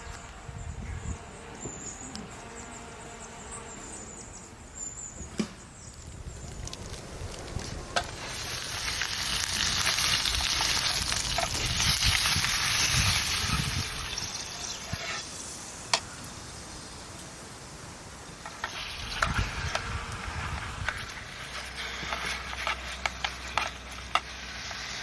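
Food sizzling in a hot pan on a camp stove. A steady frying hiss swells for several seconds, then eases into sharp crackles and spits.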